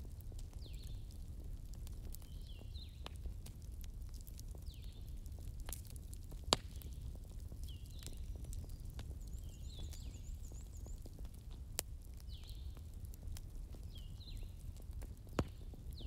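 Daytime forest-and-bonfire ambience: a wood fire crackling with scattered sharp pops, three of them louder, over a steady low rumble. Birds chirp every second or two, with a brief high trill near the middle.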